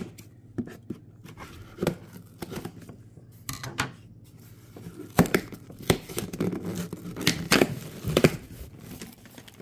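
Plastic-packed wax bars being lifted out of a cardboard box and set down on a wooden table: rustling with a series of sharp plastic clicks and taps, the loudest of them in the second half.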